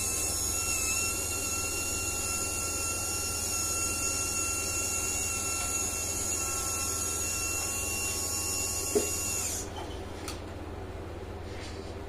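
High-pitched whine of an RC model forklift's 360° lift servo raising the loaded forks. It climbs in pitch as the servo spins up, runs steadily, then cuts off abruptly about nine and a half seconds in. There is a single sharp tick just before it stops, and only a faint motor sound follows.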